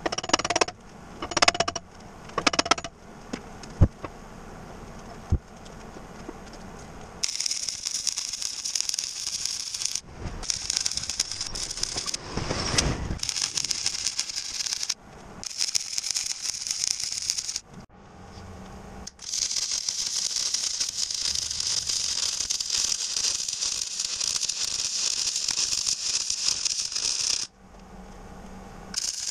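Wire-feed welder arc-welding half-inch steel plate: a few short tack bursts first, then long runs of steady crackling and hissing as beads are laid, broken by brief pauses.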